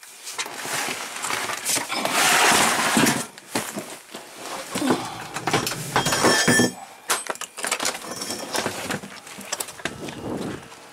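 Camera handling noise: the microphone rubbing and knocking against fabric and hands as the camera is covered and moved about, a loud irregular rustling with many clicks, loudest a couple of seconds in and again about six seconds in.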